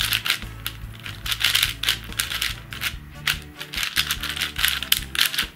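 Plastic layers of a budget non-magnetic YJ RuiSu 4x4x4 speed cube clacking as they are turned quickly during a solve, a rapid, irregular run of clicks.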